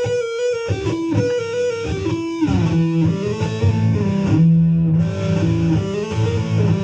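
Electric guitar playing a single-note lead phrase from a guitar solo: a held higher note at first, then a run of notes stepping down into lower, ringing notes.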